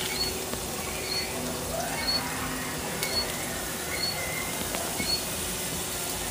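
A bird chirping about once a second, short high chirps, over the low hiss and faint crackle of wood burning in a homemade tin-can rocket stove.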